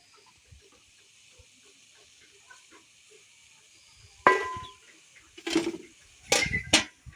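A sharp metallic clank with a brief ring about four seconds in, followed by three louder knocks and rattles near the end.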